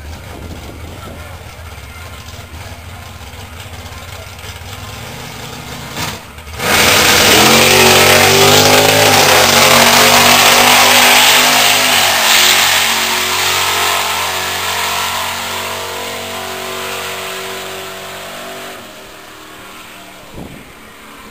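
Street drag car's engine running at the starting line, then launching hard about six and a half seconds in. The engine note climbs through the gears, loud, with a shift about twelve seconds in, and then fades as the car runs away down the strip.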